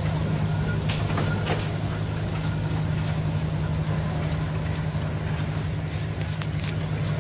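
Steady low drone of running show engines and belt-driven sawmill machinery, with a few light clicks and knocks scattered through it.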